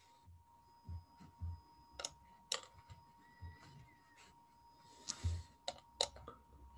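Sparse clicking at a computer: a few sharp, isolated clicks, two about two seconds in and more near the end, over a faint steady high tone.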